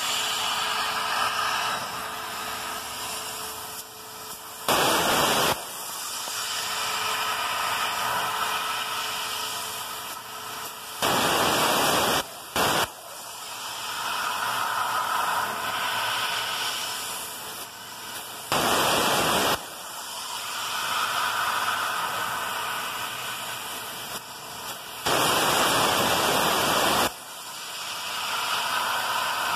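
CNC plasma cutter torch cutting small shapes out of a metal sheet: a steady air hiss that swells and fades, broken about five times by a louder, harsher hiss that switches on and off abruptly and lasts one to two seconds each time the arc cuts.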